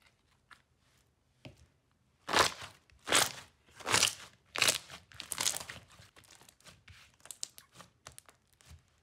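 Slime being squashed and kneaded by hand, making wet squelching and crackling sounds. After a few faint crackles, a run of loud squelches comes roughly once a second from about two seconds in, followed by quieter, scattered crackling.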